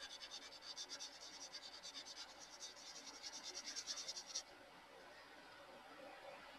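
Colored pencil scratching faintly across drawing paper in quick back-and-forth shading strokes, stopping abruptly about four and a half seconds in as the pencil is lifted.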